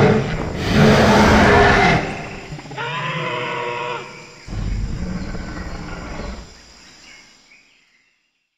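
Dinosaur roar sound effects from an augmented-reality display: about three long, deep growling roars, the last fading out near the end.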